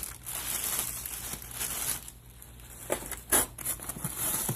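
Plastic packaging crinkling and rustling as it is handled, with a couple of sharp knocks about three seconds in.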